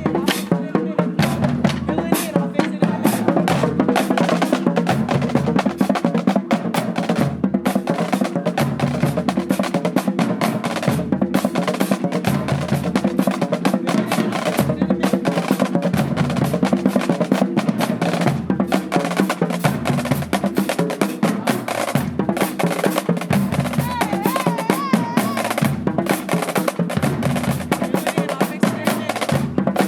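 Marching band drumline playing a marching cadence: snare drums with rapid rolls and sharp stick or rim clicks over repeated bass drum hits.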